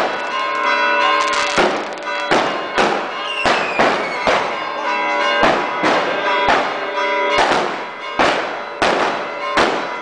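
Church bells ringing continuously in celebration of the Resurrection, under loud firecracker bangs going off about once a second, each with an echoing tail.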